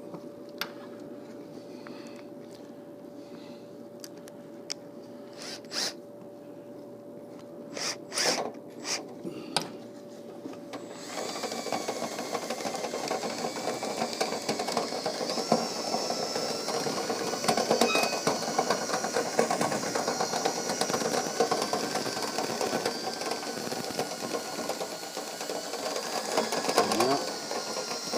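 An electric drill spins a rotary dryer-vent brush on joined rod sections inside the vent duct. It starts up about eleven seconds in and runs steadily with a wavering whine. Before that there are a few sharp clicks and knocks.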